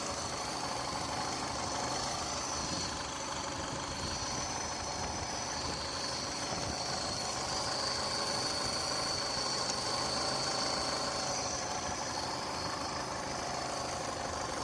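Yamaha F150 four-stroke outboard motor idling steadily. It has a rough idle, which the owner suspects comes from an air leak at the intake.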